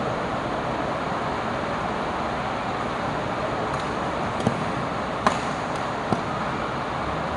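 Steady hiss of heavy rain on the hall roof. In the second half come a few sharp strikes of badminton rackets hitting the shuttlecock, under a second apart.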